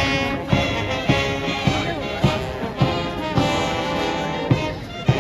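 A Guards military band playing a march, with brass over a steady bass-drum beat just under twice a second.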